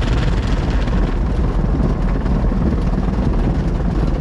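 Automatic tunnel car wash heard from inside the car's cabin: water spraying over the body and glass on top of the steady rumble of the wash machinery, loud and unbroken.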